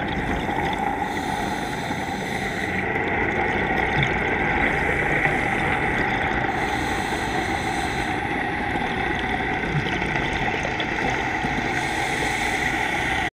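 Steady underwater drone picked up by a camera in a waterproof housing during a scuba dive, with a constant hum running through it; it cuts off suddenly near the end.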